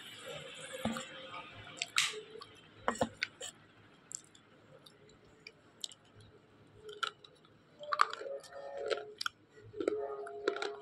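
A person biting and chewing slate pencils soaked in water: irregular sharp crunches and clicks, busiest about two seconds in and again over the last few seconds.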